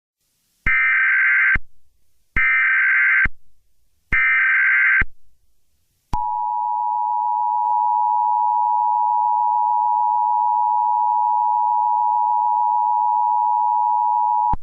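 Emergency Alert System SAME header: three short bursts of warbling data tones, each about a second long, followed about six seconds in by the EAS attention signal, a steady two-tone alarm held for about eight seconds.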